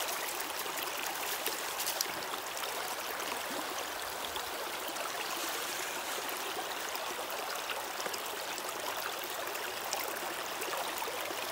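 Creek water rushing steadily through a metal river sluice box as a load of gravel washes down its mats, with a few light clicks about one and a half to two seconds in.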